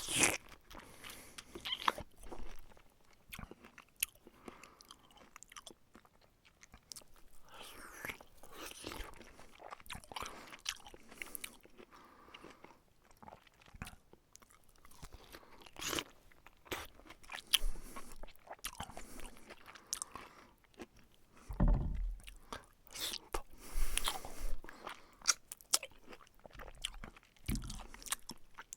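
A person eating noisily at close range: irregular crunching bites and wet chewing, with stretches of louder slurping or sucking noises.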